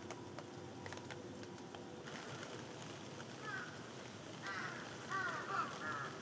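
A crow cawing in a few short runs from about halfway through, over a steady hiss of rain.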